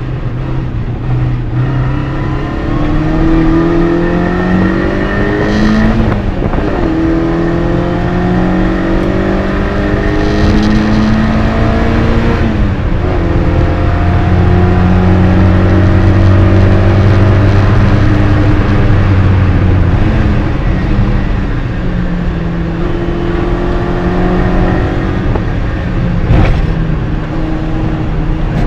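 MG Midget race car's four-cylinder engine heard from inside the cabin, revving hard under racing load: its pitch climbs and then drops sharply at each gearchange, several times over, with a short knock near the end.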